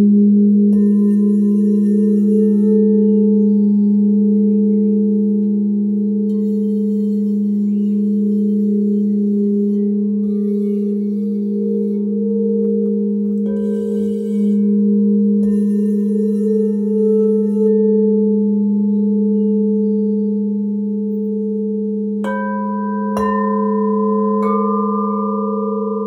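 Several Crystal Tones alchemy crystal singing bowls ring together in long, steady, overlapping tones. The lowest tone is the strongest, and one higher tone wavers in a steady pulse. Near the end, three strikes bring in higher bowl tones.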